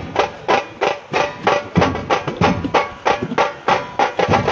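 Music with a fast, steady percussion beat, about four strikes a second.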